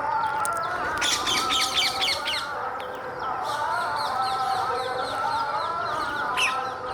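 Several birds, plausibly parrots, chattering and chirping together: a steady wavering chatter underneath, a fast run of high chirps about a second in, a string of repeated chirps from the middle on, and one sharp call near the end.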